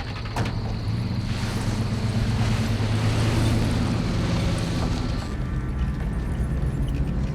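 A tow truck's engine running steadily as the truck moves off, with a sharp knock about half a second in and a rushing noise of wind and tyres from about a second in until past five seconds.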